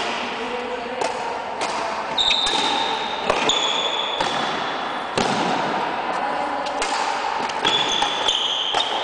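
Badminton rally in a large gym: sharp racket strikes on the shuttlecock and footfalls about once a second, with sports shoes squeaking on the hard floor in long high squeals.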